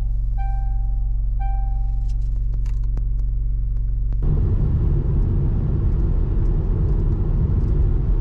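Car engine running with a steady low rumble, heard from inside the car. About four seconds in, the rumble turns louder and noisier.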